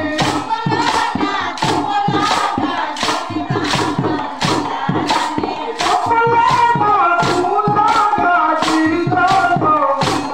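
Chekka bhajana: a group sings a devotional song to the beat of wooden hand clappers (chekkalu), struck in a steady rhythm of about two strokes a second.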